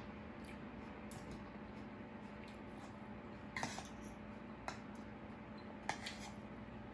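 Metal spoon and fork clinking against a ceramic plate while eating: a few short, ringing clinks, over a steady low hum.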